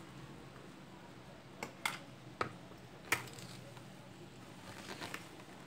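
About half a dozen light, sharp clicks and taps of a spoon and a wire whisk against a plastic mixing bowl as baking powder is spooned into sponge-cake batter and folded in.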